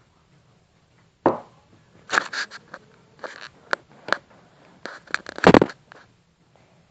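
A run of sharp clicks, knocks and rustling scrapes, starting about a second in, with the loudest rustle and knock about five and a half seconds in.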